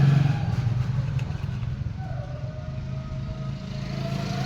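A motor vehicle engine running steadily, a low even hum, with a few light clicks about a second in.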